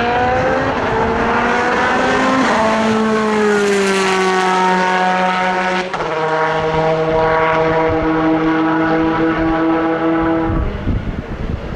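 Race car engine running hard at high revs, its pitch stepping down twice, about two and a half and six seconds in, then dropping away shortly before the end.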